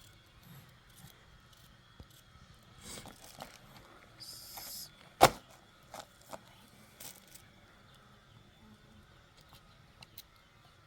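Scattered small clicks and rustles, with one sharp knock about five seconds in and a few lighter knocks after it.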